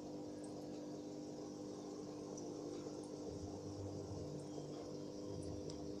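Aquarium air pump and bubble curtain running: a steady hum with a few faint ticks.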